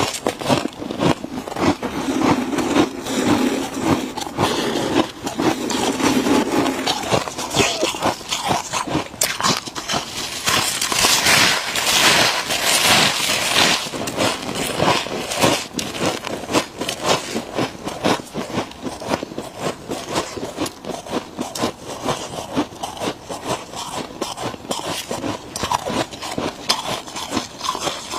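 Close-miked crunching and chewing of freezer frost: a dense, continuous run of crisp crackles and crunches, louder for a few seconds about ten seconds in.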